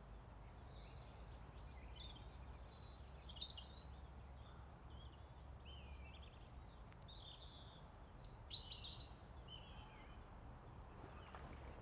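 Small songbirds singing faintly, a string of short chirps and warbled phrases, the loudest about a third of the way in and again about three quarters through, over a low steady rumble.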